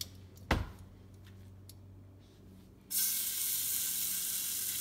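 Raw chicken tenderloin going into hot olive oil in a nonstick frying pan: a single sharp knock about half a second in, then sizzling that starts suddenly about three seconds in and holds steady, sizzling a lot.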